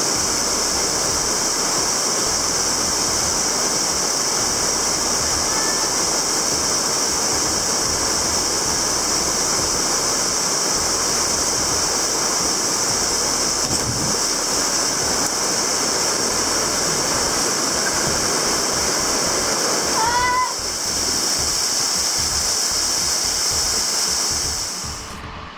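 Steady rushing of stream water in a rocky gorge, with a steady high-pitched buzz over it. A brief rising-and-falling cry comes about twenty seconds in, and the sound drops away near the end.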